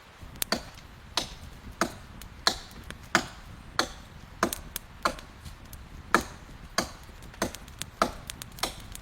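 Steady chopping: about thirteen sharp strikes, roughly one every two-thirds of a second, with a brief pause a little past the middle.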